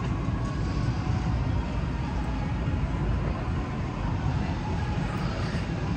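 Wind buffeting a phone's microphone: a steady low rumble that flickers continually.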